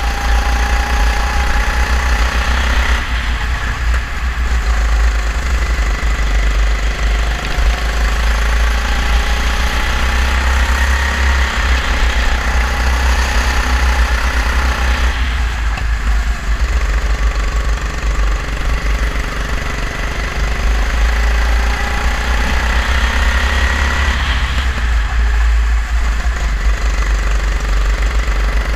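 Kart engine heard on board at racing speed. Its pitch climbs steadily and drops briefly three times, about every eleven seconds, as the kart slows for corners, over a heavy low rumble of vibration and wind on the camera.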